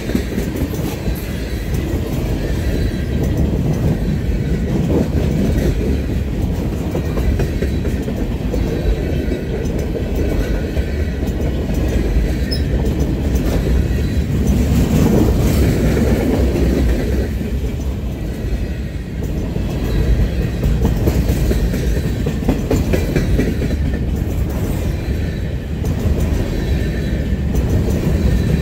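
Freight cars (tank cars, boxcars and covered hoppers) rolling past close by: a loud, steady rumble of steel wheels on the rails with the clickety-clack of wheels over rail joints.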